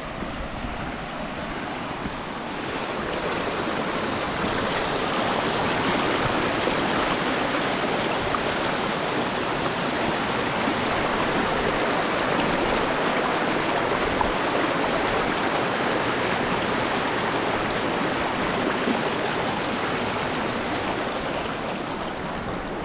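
Shallow rocky mountain river rushing over stones in small rapids, a steady noise that grows louder a few seconds in.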